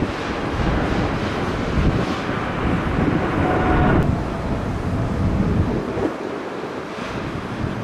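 Road traffic going past, with wind gusting on the microphone. A faint high whine stops suddenly about four seconds in.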